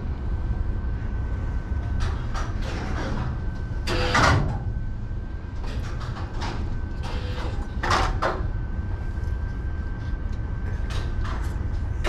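Eiffel Tower elevator car moving along the tower: a steady low rumble with a faint steady whine, and several brief louder noises, the loudest about four seconds in.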